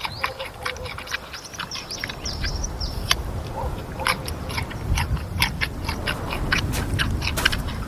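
Giant panda crunching a carrot: rapid, irregular crisp clicks of biting and chewing.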